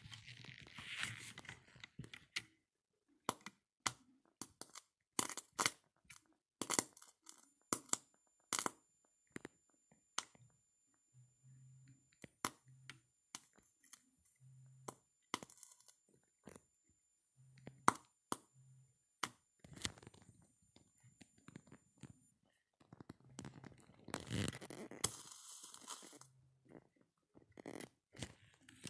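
Irregular sharp crackles and snaps as alligator clips carrying 30 volts touch a pencil's graphite rod, sparking where the clip meets the rod.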